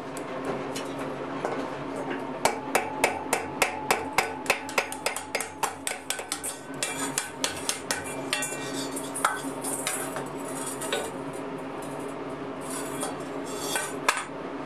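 Hand hammer striking a forged iron ladle as it rests on the anvil, knocking the strap and its nail rivets tight against the bowl. A quick run of about three or four strikes a second is followed by sparser, separate taps.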